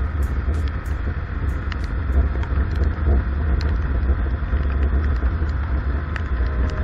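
Motorcycle riding in the rain, heard as heavy wind rumble on an action camera's microphone over steady road and engine noise, with scattered sharp ticks.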